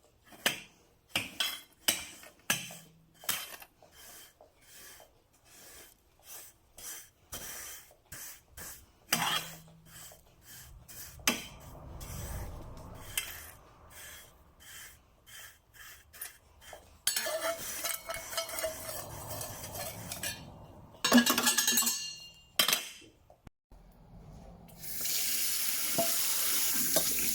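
Kitchen sounds: a long run of sharp clinks and knocks of dishes and utensils, then a tap turned on and water running steadily near the end.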